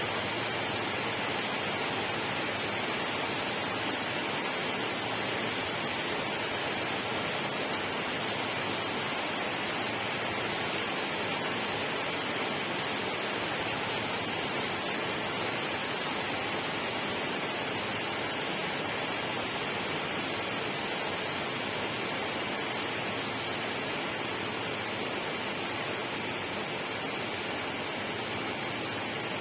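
Steady, unbroken rushing of water, an even hiss with no separate drops or splashes.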